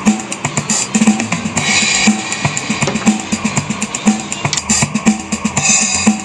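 Background music with a steady drum-kit beat and cymbals.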